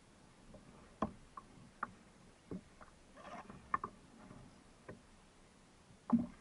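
Scattered sharp clicks and light knocks from a fishing kayak and its rod and reel, heard through a deck-mounted microphone while a fish is reeled in. There are about seven at uneven spacing, with a soft rustle in the middle.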